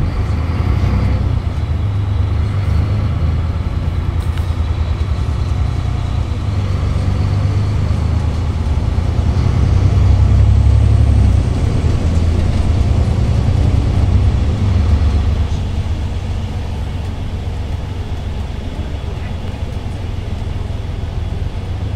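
A VDL Citea SLE-120 city bus's DAF PR183S six-cylinder diesel engine pulling under load, heard from inside the passenger cabin as a low drone. It picks up just after the start, is loudest around the middle, and eases off over the last several seconds as the bus cruises.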